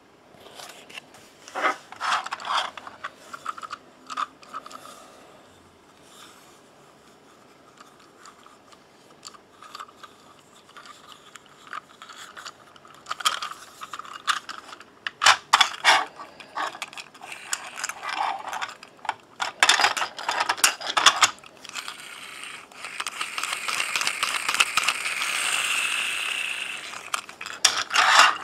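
Plastic clicks and rattles from a Taiwan High Speed Rail 700T pull-back toy train being handled and its cars pulled apart. For a few seconds near the end there is a steady whirring from its pull-back gear motor, which swells and then fades.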